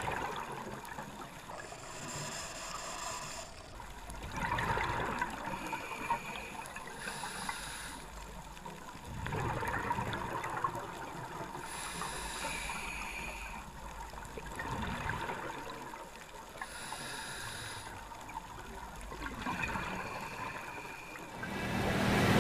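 Scuba diver breathing underwater through a regulator: a hissing inhale alternating with a gurgling rush of exhaled bubbles, one full breath about every five seconds.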